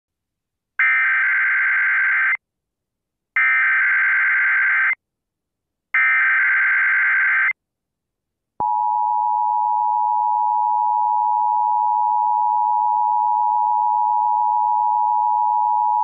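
Emergency Alert System SAME header: three screeching digital data bursts, each about a second and a half long, encoding the Required Monthly Test alert. About eight and a half seconds in, the EAS two-tone attention signal (853 and 960 Hz together) starts and holds steady.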